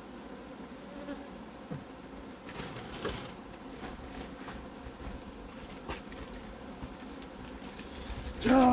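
Honeybees buzzing steadily at an open hive, with a few faint clicks and, just before the end, a brief much louder sound that wavers in pitch.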